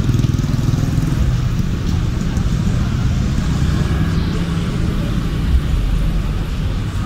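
Street traffic: motorbike and car engines running close by, a steady low rumble.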